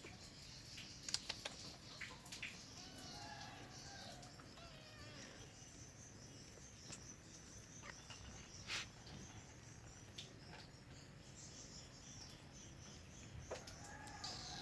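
A kitten gives a few faint meows, hungry for food, over a steady background of insects chirring. A few sharp clicks are heard, the loudest about a second in and again near the middle.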